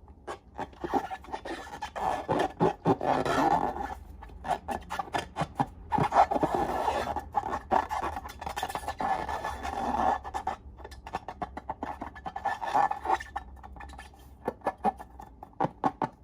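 Slime being worked by hand, squished and stirred, with many small crackling clicks and spells of scraping, rubbing noise that come and go.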